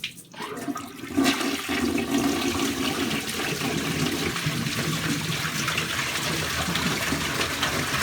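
Uninstalled 1989 Universal-Rundle toilet flushing a washcloth. A click at the start, then about a second in the tank water drops into the bowl with a loud, steady rush that goes on through the flush.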